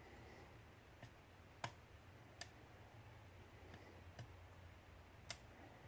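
A lock pick working the pins of a euro half-cylinder lock during single-pin picking: about five sharp, sparse clicks spread over a few seconds, over a faint steady low hum.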